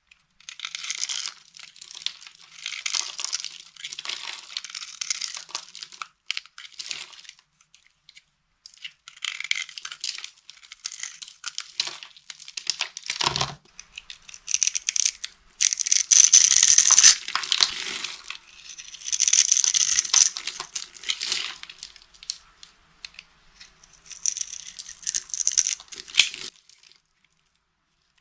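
Dry soap being crushed and crumbled, crackling and crunching in several bursts of a few seconds each with short pauses between them, and a single dull thud about halfway through.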